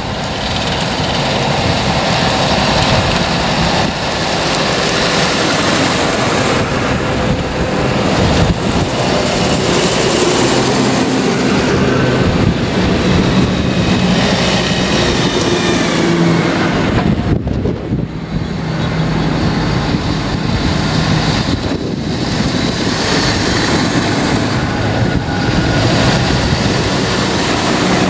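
A line of large tractors driving past one after another, their diesel engines running loudly and steadily, with the engine note shifting as each tractor comes close and goes by.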